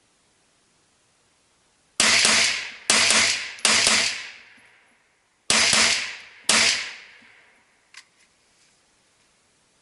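Five shots from an AR-15-type rifle fitted with a muzzle compensator: three in quick succession about two seconds in, then two more about a second apart after a short pause. Each shot rings out with a long fading echo, and a faint click follows near the end.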